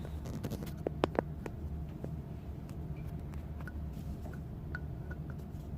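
A few sharp clicks and light taps of plastic drain-line pieces being handled and pushed together, clustered about a second in, with fainter ticks later, over a steady low hum.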